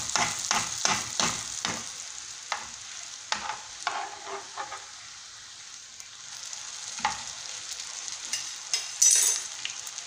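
Zlabia batter frying in hot oil in a pan, sizzling steadily, while a metal spoon strokes through the oil about three times a second for the first two seconds. Scattered clicks of cutlery on the pan follow, and a brief louder crackle of oil comes about nine seconds in.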